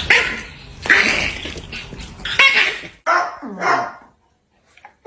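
A dog barking: three loud barks about a second apart, then a few shorter sounds falling in pitch, and a brief quiet stretch near the end.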